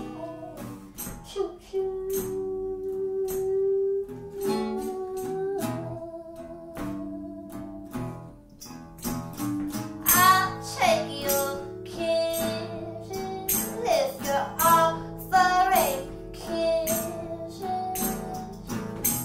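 A live song: a woman singing with sliding, bending notes over guitar, with a steady rhythm of strummed or percussive strokes.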